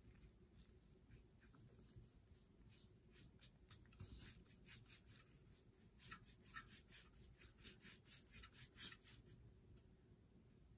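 Foam sponge brush rubbing back and forth over wet alcohol ink on a metal tray, faint quick scratchy strokes about three a second. They start about three seconds in and stop about nine seconds in.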